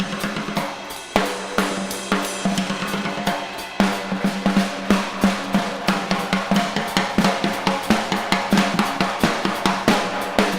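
Drum kit solo: snare, toms and bass drum struck in busy, fast patterns with cymbals, a drum's ring held underneath. From about four seconds in the strokes settle into a fast, even run. The playing echoes in a very large room.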